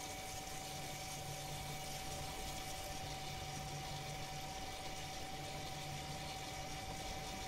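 Rear electronic parking brake caliper motor on an Audi A6 running steadily with a constant whine, winding the caliper piston back to release the pads for a pad change. It cuts off abruptly at the end.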